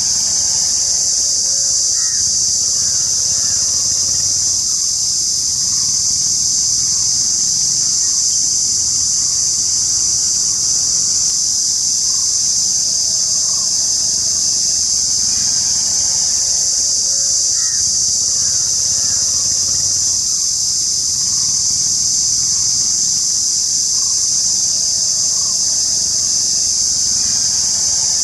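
Cicada calling: a loud, steady, high-pitched buzz that holds without a break.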